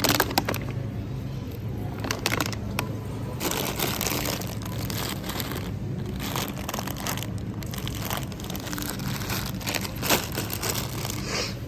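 Wind noise on the microphone, rustling and crackling in irregular gusts over a steady low hum.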